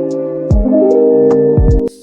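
Background music: a mellow track of held chords over a soft, steady beat of low thumps and light ticks, cut off abruptly near the end.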